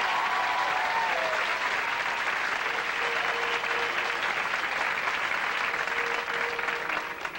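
Studio audience applauding, a dense steady clapping that fades away near the end.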